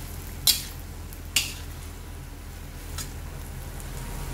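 Metal ladle stirring noodles and cabbage in a stainless steel wok, clinking sharply against the pan three times in the first three seconds, the last clink fainter. A steady low hum runs underneath.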